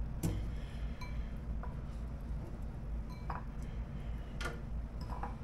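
Chicken wings being placed into an air fryer basket: about half a dozen light clicks and clinks, irregularly spaced, over a steady low hum.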